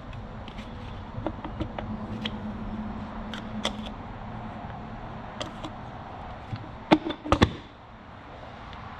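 Light metal clicks and taps as a pick tool and hands work an aluminium engine side cover onto a two-stroke dirt bike's crankcase, lining up the water pump gear and dowel pins. About seven seconds in come a few sharp knocks as the cover seats onto the case, over a faint low hum.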